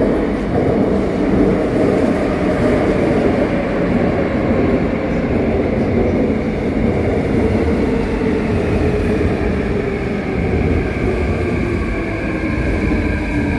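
A Seoul Subway Line 2 electric train rolls into the platform with a steady rumble and rattle of wheels on rail. Near the end a whine falls in pitch as the train slows to stop.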